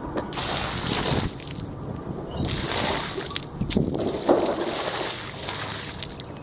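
Water poured from a plastic bucket splashing onto asphalt in a few pours, dousing scorched wood blocks.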